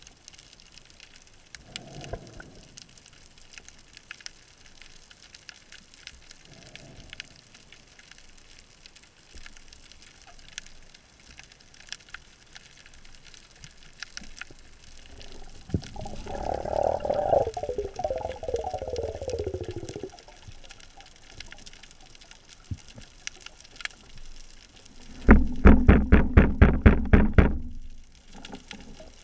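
Underwater sound at a spearfisher's camera: scattered faint clicks, then a louder gurgling rush of water and bubbles lasting about four seconds. Near the end comes the loudest part, a fast run of thumps at about five a second for a few seconds.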